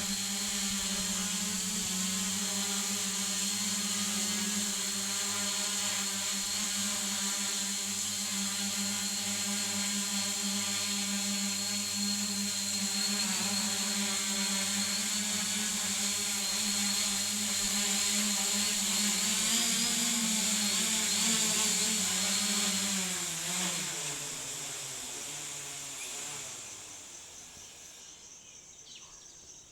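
Home-built multirotor drone's motors and propellers humming at a steady pitch while it holds altitude. About three-quarters of the way through the pitch drops and the hum fades away as the motors spin down.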